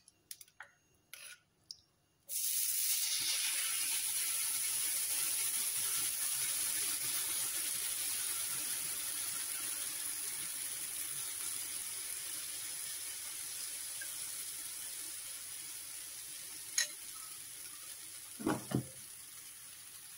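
Thin rava dosa batter sizzling on a hot oiled dosa pan. The sizzle starts suddenly about two seconds in as the batter hits the pan and slowly fades as it sets. A few light clicks come before it, and a short knock sounds near the end.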